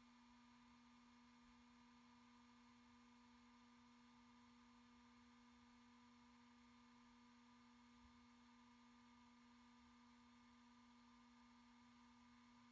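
Near silence with a faint, steady hum of one unchanging tone.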